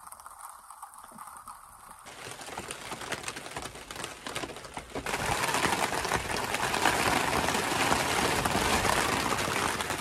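Heavy rain pattering on a green poly tarp overhead, a dense run of fine drop ticks over a steady hiss that gets louder about five seconds in.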